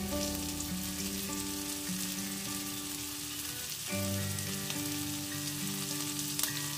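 Chopped garlic and sliced green chillies sizzling steadily in a shallow layer of hot oil in an aluminium kadai. Soft background music with held notes plays under it.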